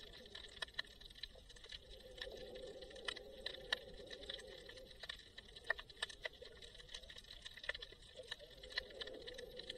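Underwater sound picked up through an action camera's waterproof housing: irregular sharp clicks and crackles, a few a second, over a faint steady hum.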